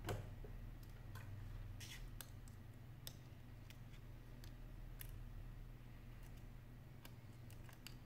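Scattered light clicks and taps of a precision screwdriver and small parts against an opened iPhone 5's metal frame and internals, with a sharper click at the start. A low steady hum runs underneath.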